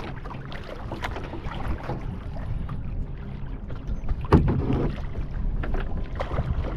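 Kayak paddle strokes: paddle blades dipping and splashing in the water at an irregular pace, over a low rumble of wind on the microphone. A sharper knock stands out about four seconds in.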